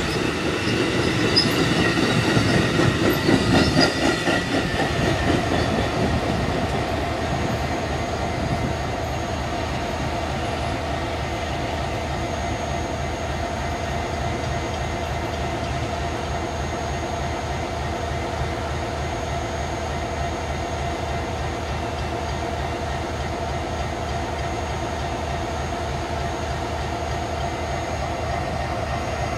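Amtrak Superliner passenger cars rolling past with high wheel squeal and clickety-clack over the first five seconds or so. After that comes a steady diesel locomotive drone with a constant mid-pitched tone from EMD freight locomotives, a CP GP20C and a Soo Line GP40, running alongside.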